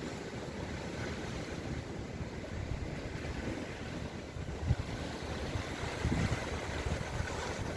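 Sea waves washing, with gusts of wind rumbling on the microphone now and then, strongest a little past halfway and near the end.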